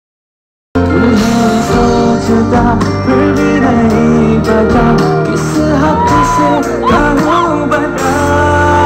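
Live band music with a lead singer, played loud through a concert sound system. It starts suddenly under a second in, after a moment of silence.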